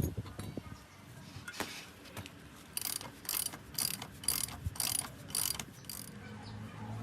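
Ratchet wrench being worked back and forth: a click, then a run of about six short metallic ratcheting strokes, roughly two a second.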